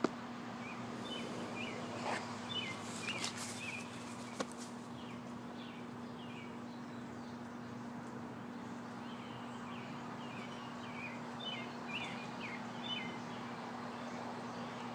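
A bird singing in short phrases of quick chirps, in two spells, over a steady low hum, with a few faint clicks in the first few seconds.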